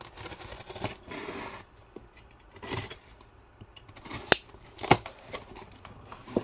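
Cardboard box being opened by hand: scraping and rustling of cardboard flaps, with two sharp knocks about four and five seconds in.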